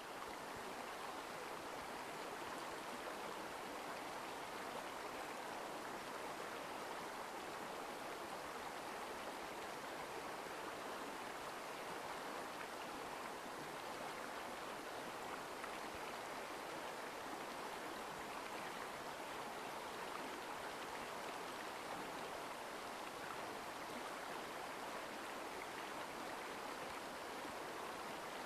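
Mountain stream water flowing steadily, a continuous rushing sound.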